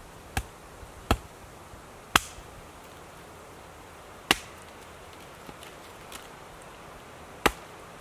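A blade chopping down into wood on a tree-stump chopping block, splitting kindling: five sharp knocks at irregular intervals, the first one lighter.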